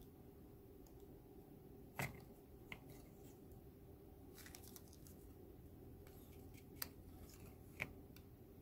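Light handling of a stiff Kent-paper robot hand: faint paper rustles and four short clicks as the folded paper fingers are flexed open and shut, the loudest click about two seconds in, over quiet room tone.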